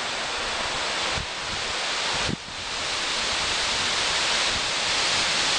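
Steady, fairly loud outdoor hiss, brightest in the upper range, with a brief dip about two seconds in; no bird calls stand out.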